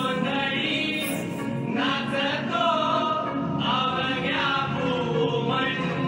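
Devotional Indian song to the goddess Bhavani: singing with long, gliding held notes over musical accompaniment.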